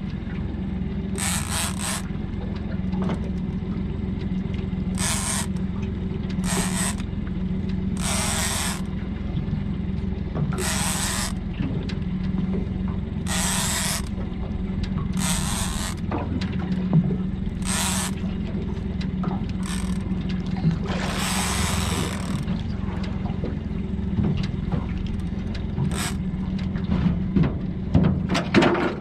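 Fishing reel on a rod bent under a hooked bluefin tuna, giving short bursts of reel noise about every two seconds as the fish is fought, over a steady low hum. A few sharp knocks near the end.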